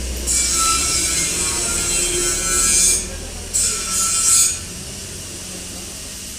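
Two rasping scrapes of metal dragging on metal, the first about three seconds long and the second about a second, as the old timing chain of a Hero Honda Passion Pro is pulled out of the engine.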